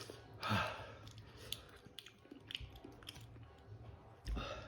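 Quiet chewing of a hot-sauce-soaked chicken wing, with small wet mouth clicks throughout and a short breath about half a second in.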